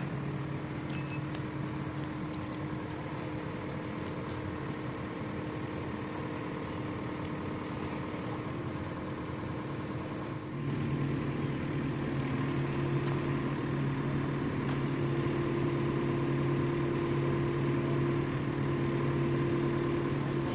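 Kubota U50 mini excavator's diesel engine running steadily, getting louder about halfway through as it takes on more load or revs.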